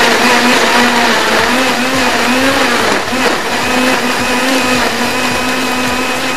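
Electric countertop blender running, grinding boiled tomatoes, onion and Kashmiri chillies with a little water into a wet paste: a loud, steady motor whine that dips briefly about three seconds in.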